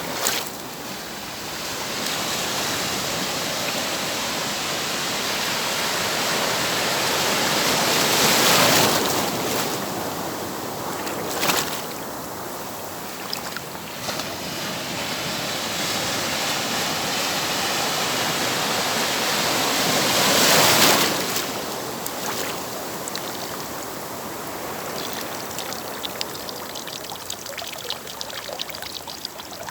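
Atlantic sea waves breaking and washing up the shore, the noise swelling and ebbing, with two larger breakers about eight and twenty-one seconds in.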